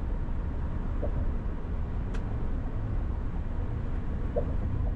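Steady low rumble of a car driving at freeway speed, heard from inside the cabin: tyre and road noise with the engine underneath.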